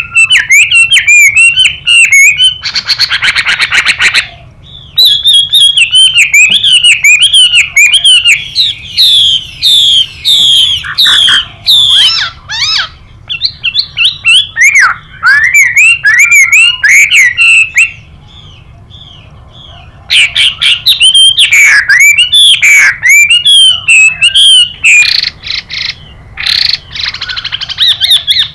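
Chinese hwamei singing fast, varied whistled phrases, joined by the harsh, hissing 'xùy' calls of a female hwamei about three seconds in and again near the end. The song breaks off briefly past the middle, then resumes.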